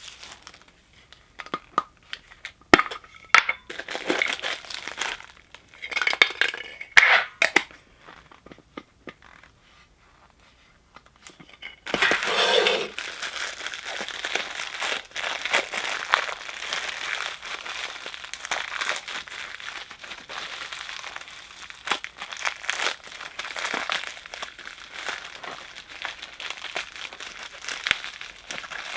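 Plastic packaging of a Funko Soda can crinkling and tearing as it is unwrapped by hand. Scattered clicks and crinkles give way to a short lull, then continuous crinkling from about twelve seconds in.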